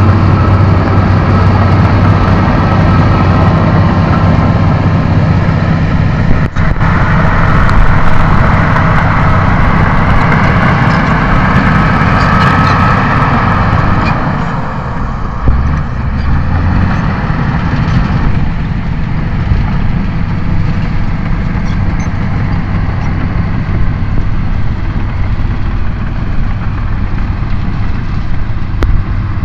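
Shantui SD16E crawler bulldozer's diesel engine running steadily under load as it pushes soil with its blade. The note shifts and gets a little quieter about halfway through.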